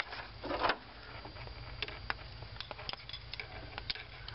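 Light, irregular clicks and taps of hand and camera handling over a low steady hum, with a short rustle about half a second in. The engine is not running.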